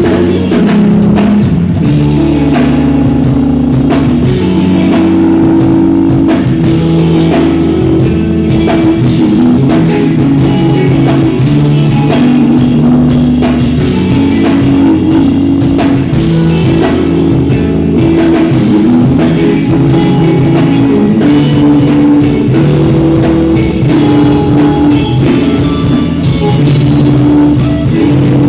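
Instrumental math-rock band playing live: interweaving electric guitar lines over a drum kit, with shifting notes and a continuous beat.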